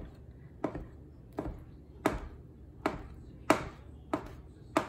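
Knife slicing through hard-boiled eggs and knocking on a cutting board, about eight strokes at an even pace of roughly one every two-thirds of a second.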